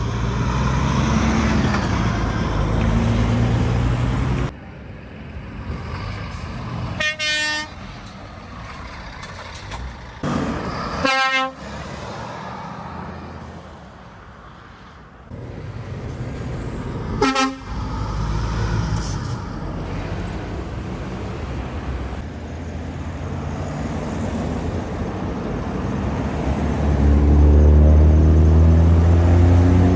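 Heavy trucks driving off with their diesel engines running, and three short truck horn toots. Near the end a line of Scania tractor units pulls away, and their engines give the loudest rumble, rising in pitch as they accelerate.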